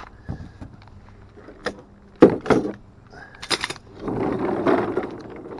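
Handling noise: a few sharp knocks and clanks, the loudest about two seconds in, then a scraping, rustling stretch near the end.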